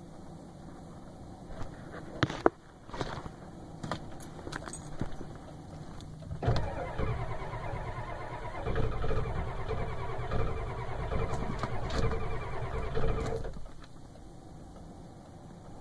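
Ford 7.3 IDI V8 diesel being cranked on the starter in a hard start: a few clicks and a sharp knock first, then about seven seconds of steady, rhythmic cranking that stops abruptly.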